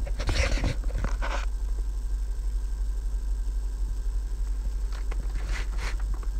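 Rustling and light knocks of a handheld device being moved and handled in the first second and a half, over a steady low hum, with a few faint clicks near the end.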